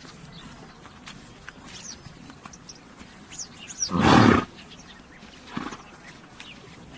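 A horse gives a loud, short, breathy blow about four seconds in, then a fainter one about a second and a half later. Small birds chirp faintly in the background.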